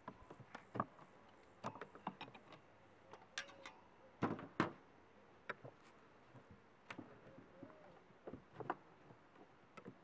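Metal hive tool prying and knocking against the wooden frames of an open beehive: scattered clicks and knocks, the loudest two close together about four and a half seconds in.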